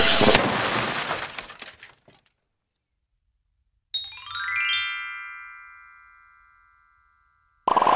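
Sound effects for a cartoon subscribe animation. First a glass-smashing crash fades out over about two seconds. About four seconds in, a rising chime rings and slowly fades, and applause starts near the end.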